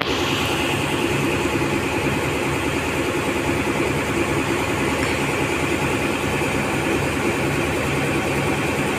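A workboat's engine running steadily, heard from on its deck, with an even hiss over it.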